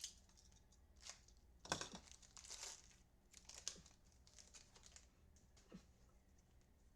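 Faint rustling and sliding of football trading cards being handled and flipped through by hand, a handful of short crinkly strokes spread through, the loudest about two seconds in.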